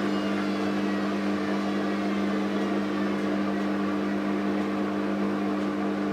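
Gorenje W7513/S1 washing machine in its spin cycle: the drum and motor running at a steady speed, giving an even hum with a constant pitch.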